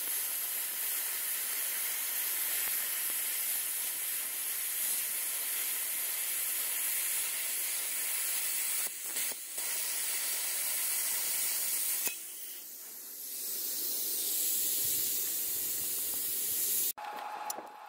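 Handheld plasma cutter cutting through steel sheet: a steady loud hiss of the arc and air jet, with two brief breaks near nine seconds and a quieter dip about twelve seconds in before it picks up again. It cuts off suddenly near the end, giving way to sharp crackles.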